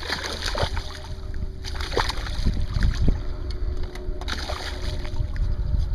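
Open-air boat ambience in a bass boat: an uneven low rumble with a faint steady hum, and a few short knocks and splashes as a just-caught bass is handled.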